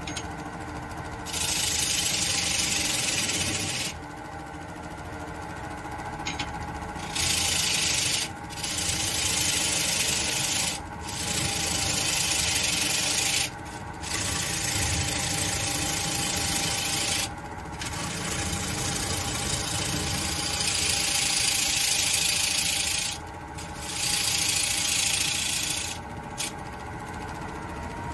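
Sandpaper rubbed against a black walnut bowl turning on a wood lathe, a loud hiss that comes in repeated passes of a few seconds each, over the lathe's steady hum.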